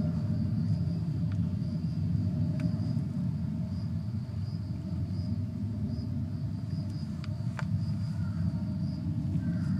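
Outdoor ambience: a steady low rumble under a faint, high, evenly pulsing insect chirp, with a few light clicks.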